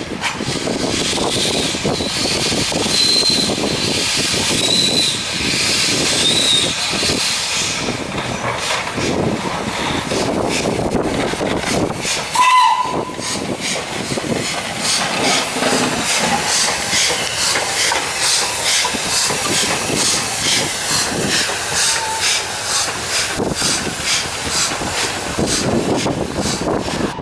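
Steam locomotive No. 461, a 2-6-0, moving off slowly with a loud steady hiss of steam from its open cylinder drain cocks. A short whistle toot sounds about halfway, and a regular run of exhaust beats follows through the second half.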